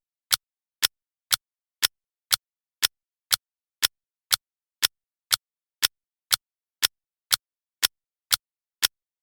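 Clock ticking at an even two ticks a second, each tick short and sharp, with dead silence between ticks.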